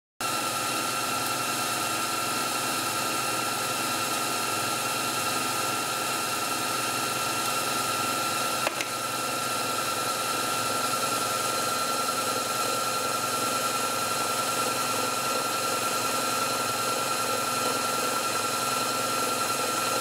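Myford lathe running steadily at high spindle speed, around 2,100 rpm: an even machine hum with a high, constant whine. It starts abruptly, and there is a single brief click about nine seconds in.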